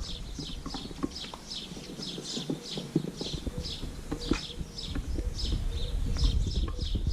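Light clicks and knocks as olives are dropped onto a fish and vegetable dish. Behind them runs a steady series of short, high chirps, about four a second.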